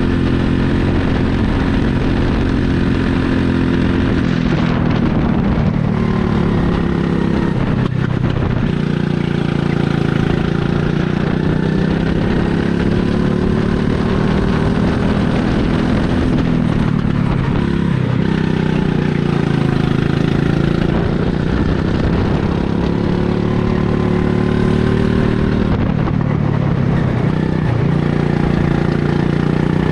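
Go-kart engine heard from the driver's seat, running hard at high revs, its pitch dropping and climbing again several times as the kart slows and accelerates around the track.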